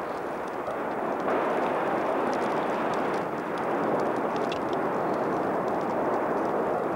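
Volcanic eruption sound: a steady rushing roar with faint scattered crackles, growing a little louder about a second in.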